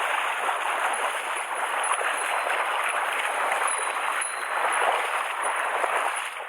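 Mountain stream water rushing over rocks, a steady rush.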